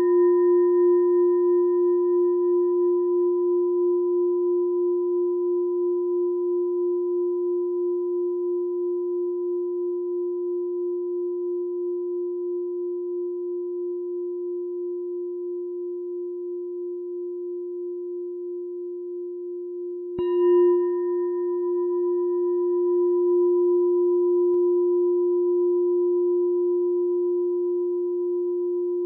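Meditation bell ringing with one steady low tone and a few higher overtones, slowly fading with a gentle pulsing. It is struck again about twenty seconds in and rings on.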